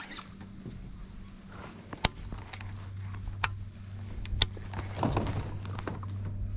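Baitcasting rod and reel being cast and handled from a kayak: three sharp clicks and some brief scuffling over a steady low hum.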